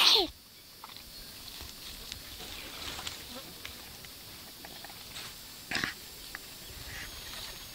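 A toddler's short high vocal squeal, falling in pitch, right at the start, then faint outdoor background with small ticks and one brief noisy burst a little before six seconds.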